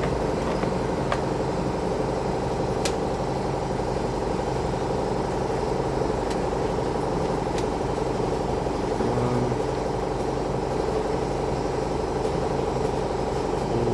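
Steady hum of a running motor, unchanging throughout, with a few faint clicks.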